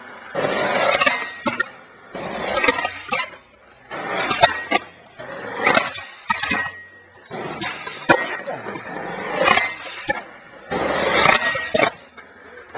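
Skateboard wheels rolling on rough concrete, with sharp clacks of the board popping and landing and the scrape of the board grinding or sliding on a painted ledge. The sound comes in several short runs of a second or so each, with brief gaps between them.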